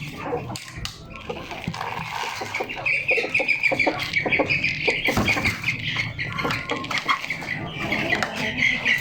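Baby parrots calling in a rapid, continuous high chatter that starts about two and a half seconds in, with scattered light clicks and rustling.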